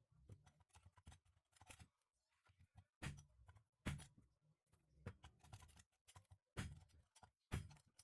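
Faint, irregular clicks and knocks of small metal parts and tools being handled, a dozen or so light taps with a few sharper knocks.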